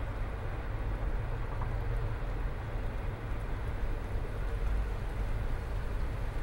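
Steady rain falling during a small thunderstorm, with a continuous low rumble underneath.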